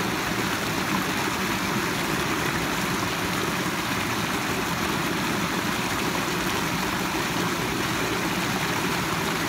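Floodwater rushing steadily over a small overflow weir, a constant churning rush of water running high after rain.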